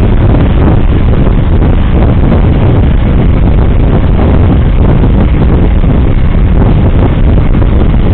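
A vehicle driving, heard from inside the cab: a loud, steady engine and road rumble, deepest in the bass.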